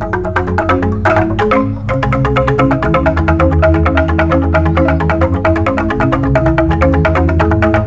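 Jegog ensemble of giant bamboo xylophones playing a fast interlocking piece: rapid mallet strikes on the bamboo tubes over a deep, sustained bass, with a brief accent about a second in.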